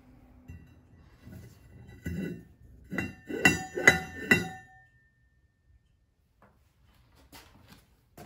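Machined metal hub centre clinking against a spoked metal wheel rim as it is handled and set in place: about five metallic clinks in quick succession, a couple of seconds in, each with a brief ring.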